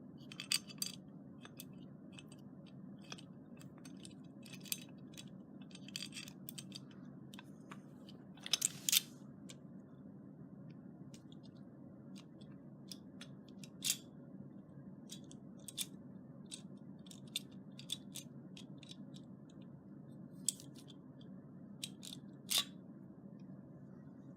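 Scattered small clicks, taps and short scrapes of a keypad deadbolt's metal parts and screws being handled and fitted together, with a steady low hum underneath.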